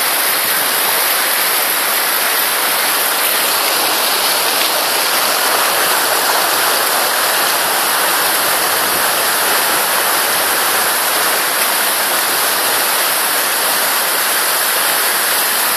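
Fast mountain stream rushing hard over big stones, a steady loud roar of water.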